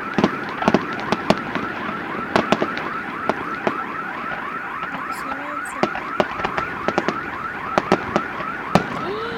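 A car alarm's warbling siren, repeating about four times a second, with irregular sharp bangs and pops from a fireworks display over it.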